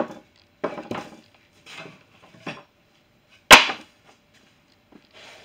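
Cut plywood panels being set down and stacked on a plywood sheet, giving a series of wooden knocks and slaps, the loudest about three and a half seconds in.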